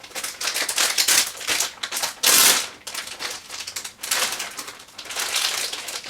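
A plastic 200mm computer case fan and the case's panel parts being handled and pulled free. The sound is a dense run of clicking, rattling and scraping with rustles, with a louder scraping, rustling burst about two seconds in.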